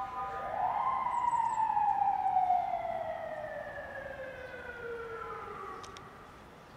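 Siren wailing: a long tone that rises over about the first second, then falls slowly for about five seconds and fades out.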